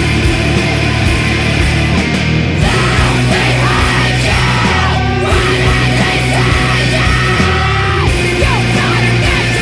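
Post-hardcore rock recording: distorted twin guitars, bass and drums playing loud and dense, with shouted vocals.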